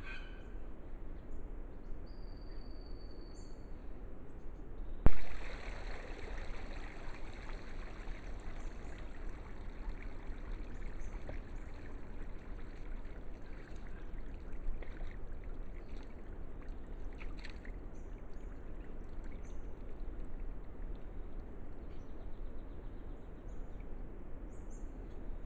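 Sambar deer stag moving in a shallow muddy wallow, with soft sloshing and trickling of water. A single sharp click about five seconds in, and a few faint bird chirps.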